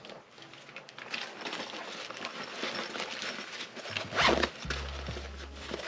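A zipper being pulled in a series of raspy strokes, the loudest about four seconds in, with handling rustle and a low bump near the end.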